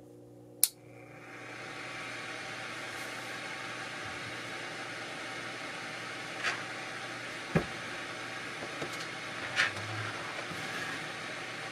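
A thermostat relay clicks once, switching on a 12 V 150 W car heater fan because the temperature has dropped below the 19 °C turn-on setting. The fan spins up over about a second and then runs with a steady rush of air. A few light clicks and taps come later.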